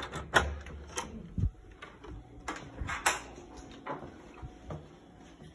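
Hotel room door and its lock being worked, heard as a scatter of sharp clicks and knocks with a dull thump, the loudest click about a third of a second in.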